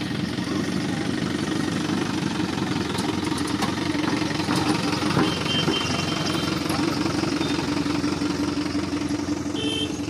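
Engine of a light goods truck running steadily at close range as the truck drives along the road.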